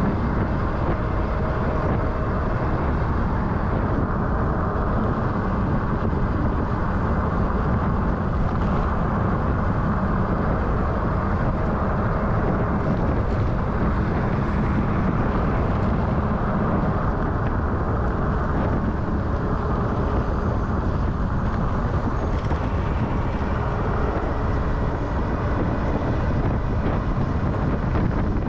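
Steady wind rush and road noise on a GoPro action camera's microphone while riding at speed.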